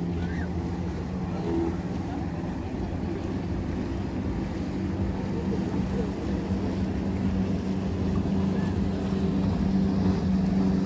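Steady drone of a motorized watercraft engine running on open water, with water and wind noise, growing louder toward the end.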